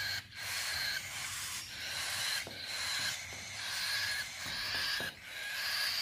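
Baby cockatiel chick begging for food: a run of hissing, wheezy calls about a second long each, one after another with short breaks between them, the typical hunger call of an unweaned cockatiel waiting to be hand-fed.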